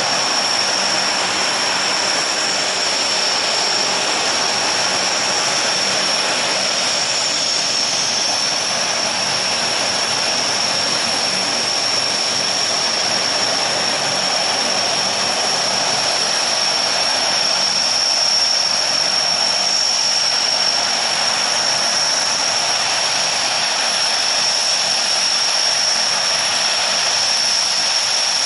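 Lockheed C-130 Hercules with all four Allison T56 turboprop engines running at taxi power: a loud, steady high-pitched turbine whine over the rushing noise of the propellers.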